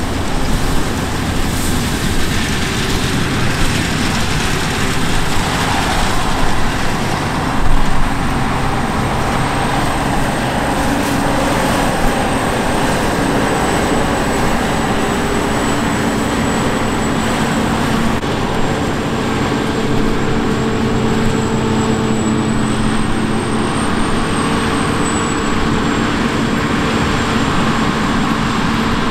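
Steady running noise of a vehicle or engine in motion, with a few held low tones and a thin high whine that wavers a little.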